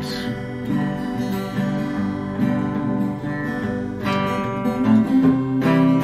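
Twelve-string acoustic guitar strummed, chords ringing on in a steady rhythm with no voice.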